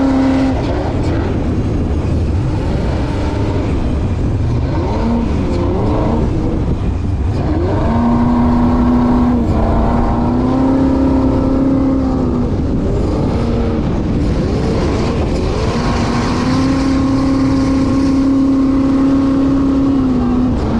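LS-swapped junkyard 5.3-litre V8 driving a jet boat under way. It holds steady speed for stretches of a few seconds, and in between its pitch rises and falls as the throttle changes, over a constant rush of water and wind.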